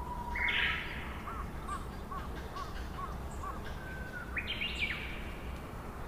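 Red-whiskered bulbul calling: a loud, short chirping phrase about half a second in and another near the end, with a run of about six soft, repeated whistled notes, roughly two a second, in between.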